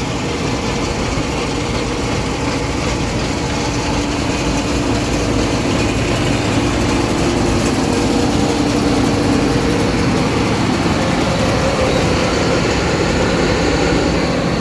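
Combine harvester running steadily under load while harvesting barley: a loud, even machine drone with a few held tones.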